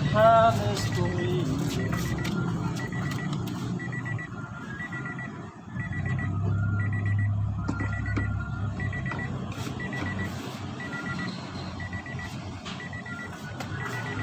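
A high electronic beep repeating about twice a second, with a few lower tones mixed in, over a low hum.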